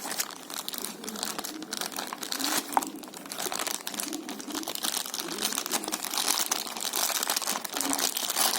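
Packaging being handled during a watch unboxing: continuous crinkling and rustling, getting louder toward the end.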